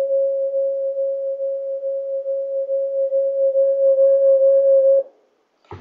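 Audio feedback howl in a video call, caused by an iPad left on in the room: one loud steady tone, with fainter higher tones joining near the end. It cuts off suddenly about five seconds in, when the iPad is switched off.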